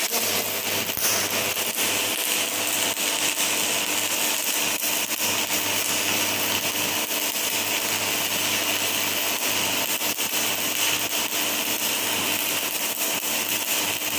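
Stick (shielded metal arc) welding from an AC welding transformer: the electrode's arc crackles and sizzles steadily as it lays a lap-joint bead, over a low steady hum. The arc starts abruptly right at the start.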